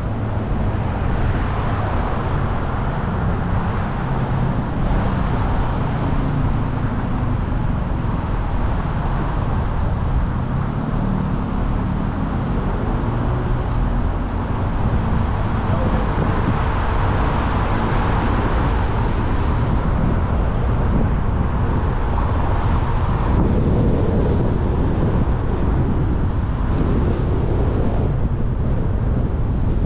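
Car driving on city streets: steady road and traffic noise with a low engine hum.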